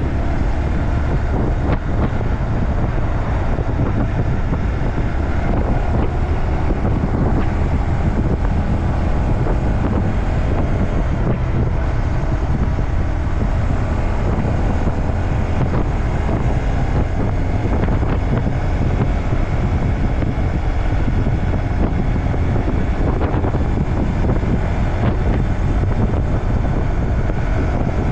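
Honda Grom's small single-cylinder engine and tyres running at about 30 to 40 mph on the road, buried under steady wind rush buffeting the microphone.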